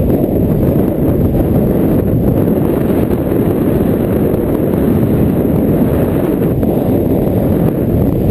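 Wind buffeting the microphone of a pole-mounted camera in flight under a tandem paraglider: a loud, steady low rumble.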